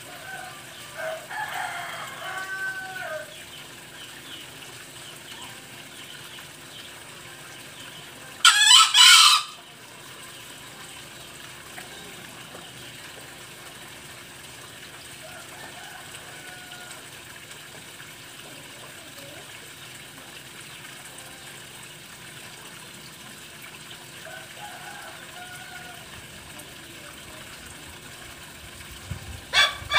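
Male green junglefowl calling: short clucking calls in the first few seconds, then one loud, short, harsh crow about nine seconds in. A few faint calls follow, and a loud run of repeated calls starts just before the end.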